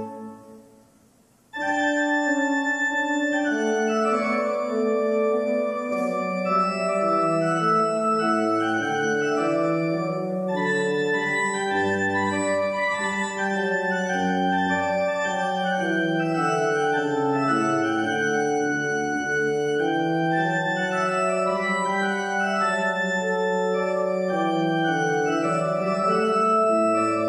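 Church organ playing slow, sustained chords over a moving bass line. The sound dies away just after the start and the organ comes back in about a second and a half in, then plays on without a break.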